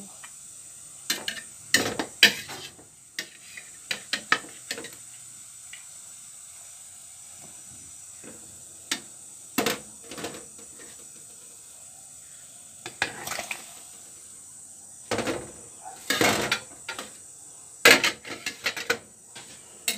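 Metal spoon clinking and scraping against a stainless steel pot of boiling pork, as the foam is skimmed off the surface. The taps come in clusters, with a quieter stretch in the middle.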